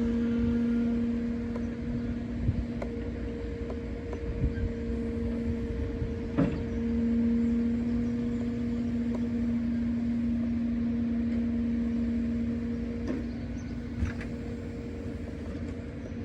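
Truck engine running steadily at raised revs to drive the loader crane's hydraulics, a constant hum that drops out briefly about six seconds in. Several sharp knocks and clanks from the crane and load sound over it.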